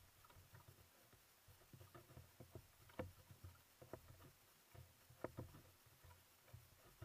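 Faint paddle strokes from a kayaker on a sit-on-top ocean ski: irregular splashes and knocks of the blade in the water, with low thumps against the hull. The loudest knocks come about three seconds in and again just past five seconds.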